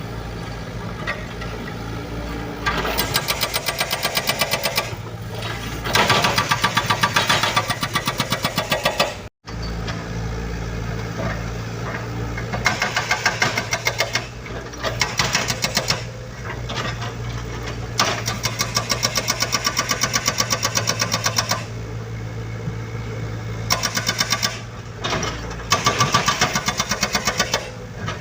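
Komatsu mini excavator's diesel engine running steadily, rising again and again to a louder, rapid pulsing clatter for a few seconds at a time as it works under load. The sound cuts out for an instant about nine seconds in.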